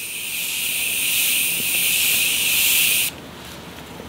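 Morphe Continuous Setting Spray misting onto the face in one long, steady hiss that cuts off suddenly about three seconds in.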